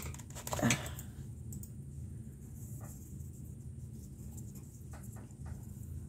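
Leather lace being handled and pulled back through a baseball glove's web to undo a twisted section: soft scrapes and rubs of leather on leather, with one louder short scrape about half a second in and a few faint clicks later, over a low steady hum.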